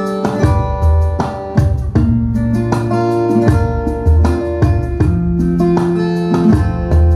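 Instrumental song with plucked guitar over sustained bass notes in a steady rhythm, played back through a home-built videoke speaker set-up as a sound test.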